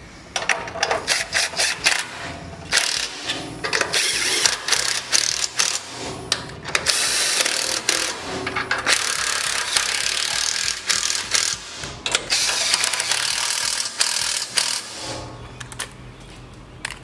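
Cordless DeWalt power driver with a socket running in short bursts, then for about eight seconds straight with a rapid rattle, backing out a head bolt to take the lifting lug off a Tecumseh engine. It stops about two seconds before the end.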